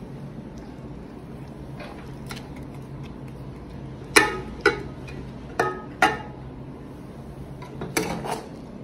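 A plate clinking against a cooking pot as rice is scooped and spread with it: three pairs of sharp, ringing clinks, starting about four seconds in.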